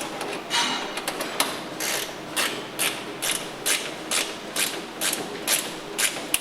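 Hand tool clicking in quick repeated strokes, about two ratcheting bursts a second, as the strut kit's parts are tightened.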